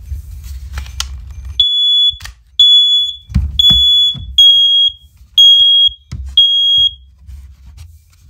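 First Alert OneLink hardwired smoke alarms going off in their three-beep alarm pattern, starting about a second and a half in. Two units at slightly different pitches sound alternating sets of three half-second beeps, out of step with each other. The linked alarms are responding late to the test, called "really late".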